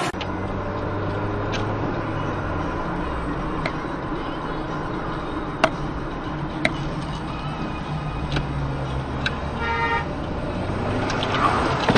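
Steady engine and road noise heard from inside a moving car, with two sharp clicks midway and a short car-horn toot about ten seconds in.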